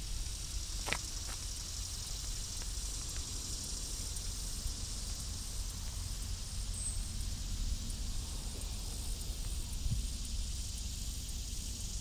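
Outdoor ambience of wind buffeting the microphone: a steady low rumble under an even high hiss, with a faint click about a second in.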